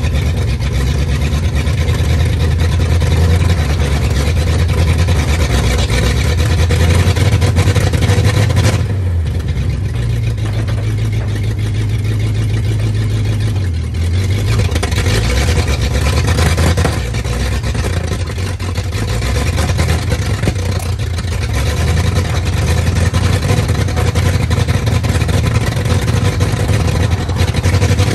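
1939 Ford truck's flathead V8 running, its revs rising and falling at times as the truck is worked in gear against a rear brake drum that is locked solid, so it won't move under its own power.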